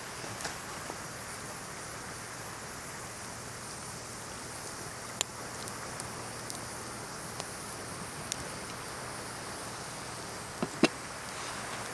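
Pine fatwood campfire crackling, scattered sharp pops and snaps, the loudest pair near the end, over a steady hiss of ocean surf.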